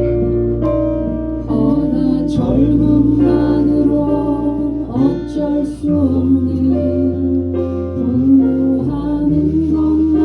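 Live band music: guitar over held bass notes, with a voice singing.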